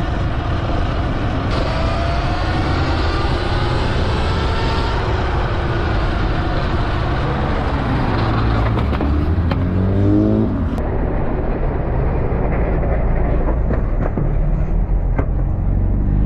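Steady wind and road noise from a rider moving through traffic, with cars passing close. About nine seconds in, a car engine rises in pitch as it accelerates alongside.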